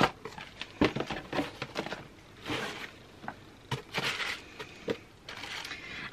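Tissue paper and card rustling and crinkling as items are handled inside a cardboard box, with scattered light taps and clicks.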